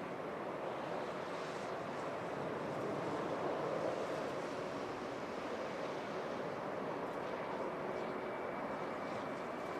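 Jet airliner engines heard from a distance as a steady rushing noise. It swells slightly about three to four seconds in, and a faint high whine joins near the end.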